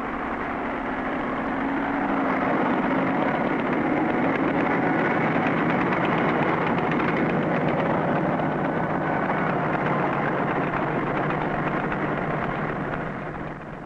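Crawler tractor engine running with the clatter of its tracks, growing louder over the first two seconds and fading out near the end.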